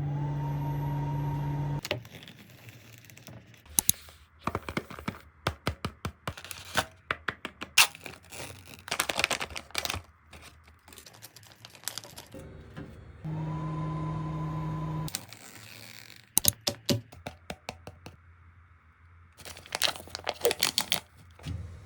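Plastic food packaging being torn, peeled and crinkled open, with clicks and taps of containers and lids. Three times a steady electric hum with a higher whine sets in for about two seconds, typical of a microwave oven running to heat the meals.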